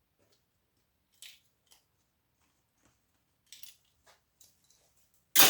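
Small clicks and snips of circuit-board scrap being handled and cut with hand cutters. Near the end a much louder clatter lasts about a second.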